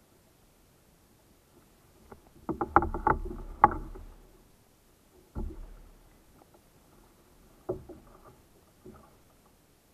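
Knocking and clatter of a landing net and fishing gear against a plastic kayak hull. A burst of knocks comes about two and a half to four seconds in, then a few single knocks later.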